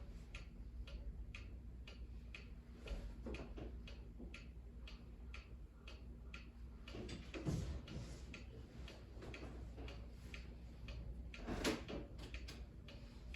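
Wind-up mechanical clock ticking steadily, about two ticks a second, with two louder knocks partway through.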